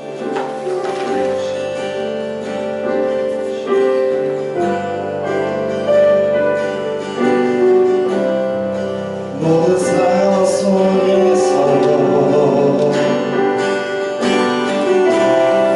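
A church worship band plays the instrumental introduction to a praise song: sustained chords with guitar, changing every second or two, leading into the first sung line.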